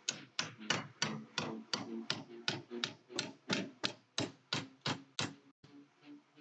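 Ball-peen hammer tapping repeatedly, about three strikes a second, each with a brief ring, with a short pause near the end.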